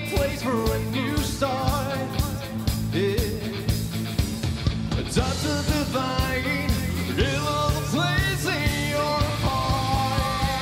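Live rock band playing: a male lead singer sings over electric guitar, bass guitar, keyboard and a steady drum beat.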